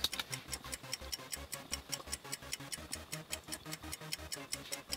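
Steady, rapid mechanical ticking, about eight even ticks a second, with a soft low pulse beneath it.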